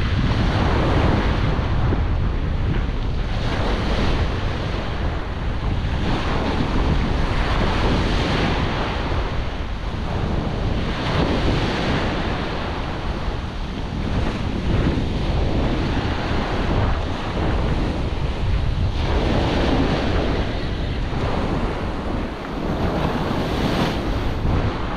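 Small waves breaking and washing up over a pebble beach, surging in every few seconds, with a stiff onshore wind rumbling on the microphone.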